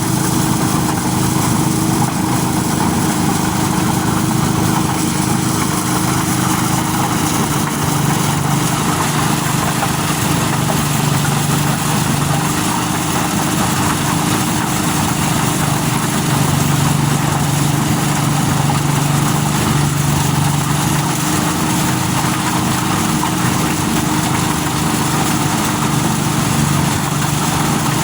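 Engine-driven corn sheller running steadily: a constant, unchanging engine hum.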